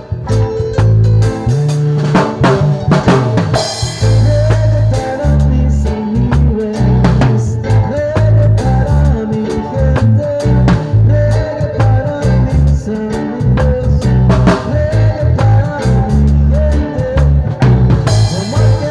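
Loud music with a drum kit and heavy bass keeping a steady beat, a melody line running over it.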